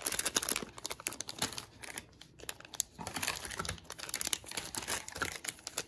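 Clear plastic packaging bag crinkling and crackling as fingers handle it, in quick irregular crackles that ease off briefly around the middle.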